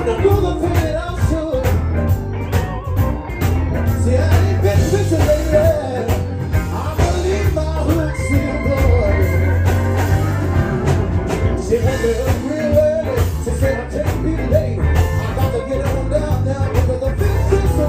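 Live blues band playing, with a man singing lead into a handheld microphone over a strong bass line.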